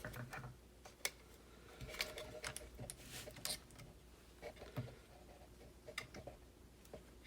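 Light clicks and taps of small plastic RC car kit parts and tools being handled, scattered irregularly over several seconds.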